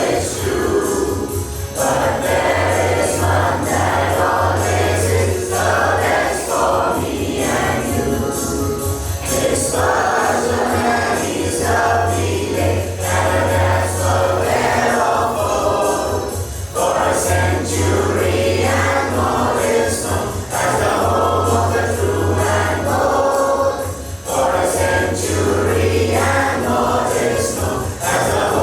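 A large group of students singing an anthem together as a choir, in continuous sung phrases.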